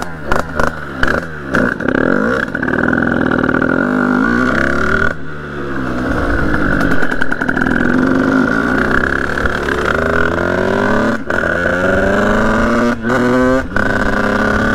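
Sherco 50cc two-stroke motorcycle engine revving as the bike rides off, its pitch climbing and falling again and again, with a few brief cuts where the throttle closes. Near the end it settles to a steadier note.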